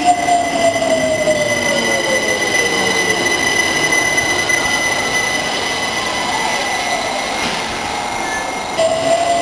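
London Overground Class 378 electric train running along the platform and slowing, its motor whine falling in pitch over the first few seconds, over a steady high-pitched squeal. Near the end the sound switches abruptly to a rising motor whine.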